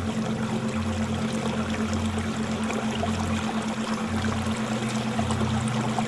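Water pouring and trickling in a hexagon aquarium, a steady splashing hiss, with a low hum underneath.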